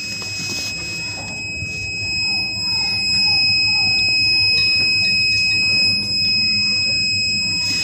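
Solid SF-630 satellite dB meter giving a continuous high-pitched buzzer tone, steady in pitch, with the dish aligned on a strong signal. A low background rumble lies under it.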